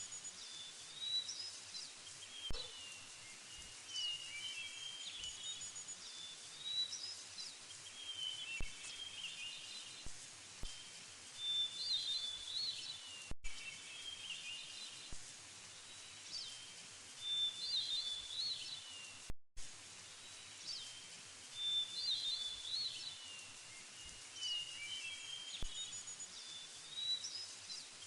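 Small birds chirping and twittering in short, repeated phrases over a steady background hiss, like a woodland ambience track. The sound drops out for an instant twice.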